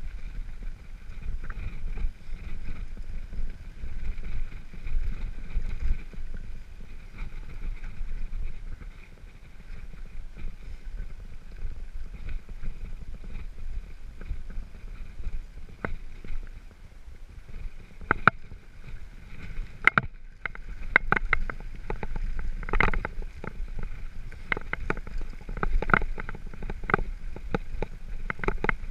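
Mountain bike riding down a rocky gravel track: a steady rumble of tyres on stones, with the bike rattling. From about 18 seconds in come many sharp clatters and knocks as it hits rougher ground.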